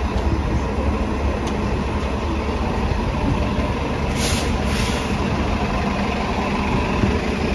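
A New Flyer XD40 city bus's diesel engine idling steadily at a stop with the front door open, with two short hisses a little past four seconds in.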